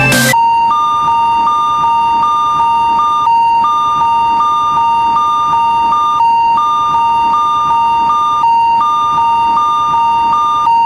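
Electronic railroad-crossing warning bell in the style of a Japanese fumikiri: a steady high beep with a second, slightly higher tone pulsing over it in quick repeated groups, broken by short pauses every few seconds. Music cuts off just before it starts, about half a second in.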